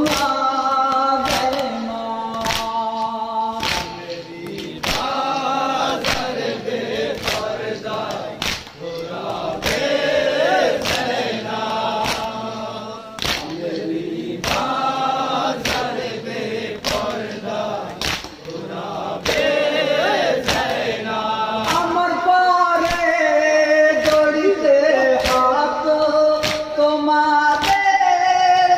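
Men chanting a noha, a Shia mourning lament, in chorus, with sharp strokes of matam chest-beating keeping time about every three-quarters of a second.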